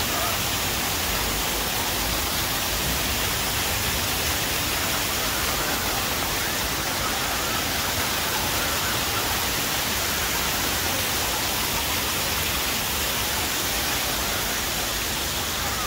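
Ornamental fountain water spraying and splashing down: a steady, even rush of water.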